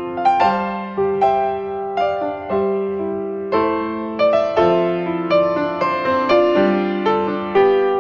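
Background piano music: a slow melody of single notes and chords, each struck and left to ring and fade, about two a second.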